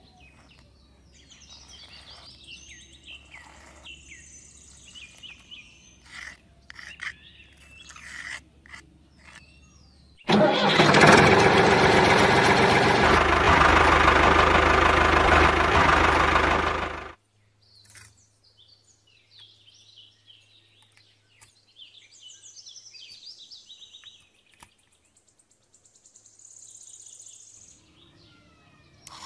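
Birds chirping, broken about ten seconds in by a loud, steady motor running for about seven seconds, which then cuts off and leaves the chirping again.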